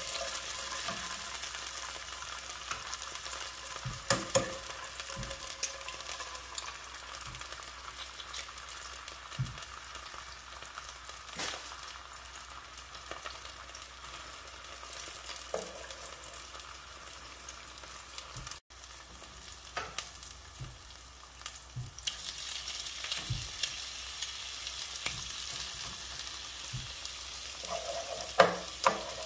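Fish balls, egg and shrimp sizzling in hot oil in a nonstick frying pan, with occasional knocks and scrapes of a spatula stirring them. The sizzle gets louder about two-thirds of the way through, and a quick run of spatula knocks comes near the end.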